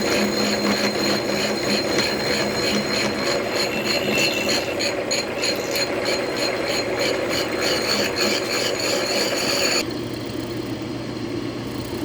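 Milling machine cutting metal: the spindle motor running with the cutter chattering through the workpiece in a steady, rhythmic ticking. About ten seconds in the cutting noise drops away, leaving the quieter hum of the machine running.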